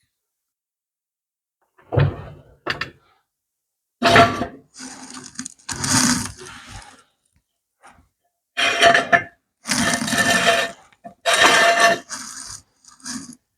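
Irregular clunks, knocks and scraping of heavy metal parts being shifted and manoeuvred by hand, in short bursts with dead silence between. The first knock comes about two seconds in.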